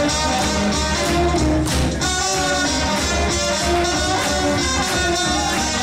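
A live swing band plays jazz for Lindy hop dancing: plucked strings and pitched instruments over a steady, regular beat.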